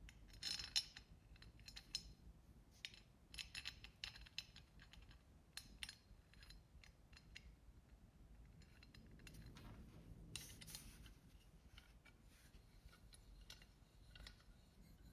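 Faint, scattered metallic clicks and clinks of small metal parts and hardware being handled, over a low hum.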